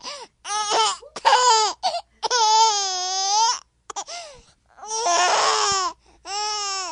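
A baby's high-pitched vocalizing: a run of about six drawn-out squealing calls, each with a wavering pitch and the longest lasting over a second, broken by short pauses.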